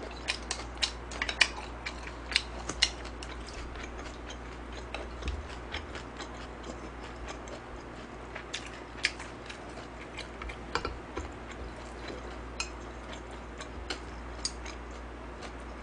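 A person eating jjamppong noodles close to the microphone: chewing with irregular small wet clicks and smacks, packed closely in the first few seconds and scattered after.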